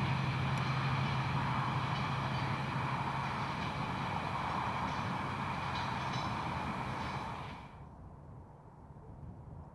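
Freight train of empty flat wagons rolling past on the rails, a steady rumble with a few faint clicks from the wheels. It cuts off sharply near the end to quiet open-air ambience.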